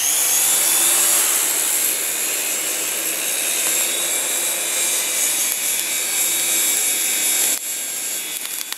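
Mini indoor toy helicopter's small electric motor and rotor whirring steadily, held over the charcoal as a blower to fan the coals; the whirr drops in level about seven and a half seconds in.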